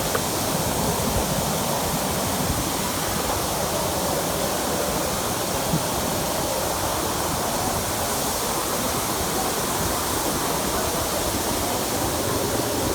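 Steady rush of a waterfall, falling water pouring over rock at close range.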